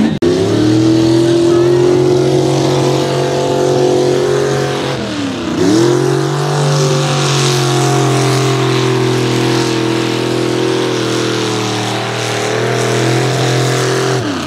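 Mud racing truck's engine held at wide-open throttle as the truck churns through a mud pit, running steady at high revs. About five seconds in, the pitch dips briefly and then climbs back up.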